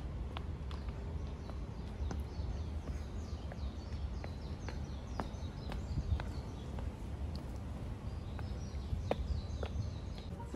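A bird chirping in quick runs of short, high, falling notes, in two bouts, over a steady low outdoor rumble. Scattered sharp ticks are also heard.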